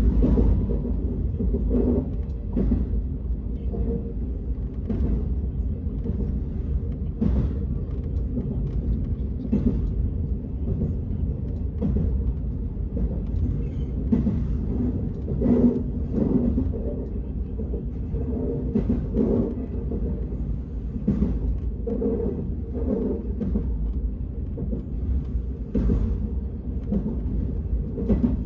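Steady low rumble of a moving vehicle, with frequent irregular knocks and clatters and faint voices in the background.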